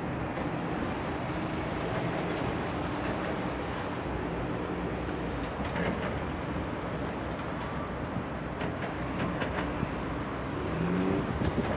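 Distant jet engines of a twin-engine airliner taxiing onto the runway: a steady low rumble, with a brief rising tone near the end.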